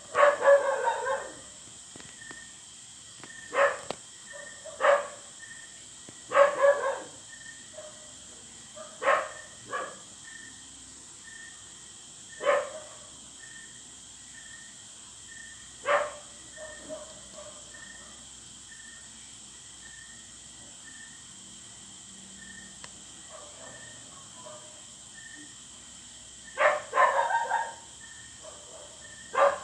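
A dog barking off and on: single barks and short runs, about a dozen in all, with a long lull in the middle.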